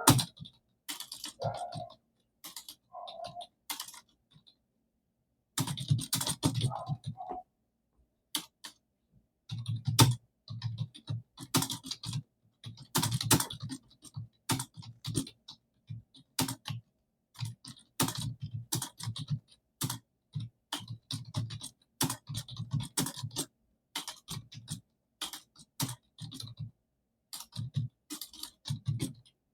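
Computer keyboard being typed on fast, at about 50 words per minute: rapid runs of key clicks broken by short pauses, with one pause of about a second and a half early on.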